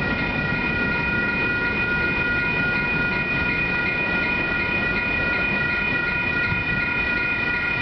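Grade-crossing warning bell ringing steadily over the rumble of freight cars rolling past on the rails.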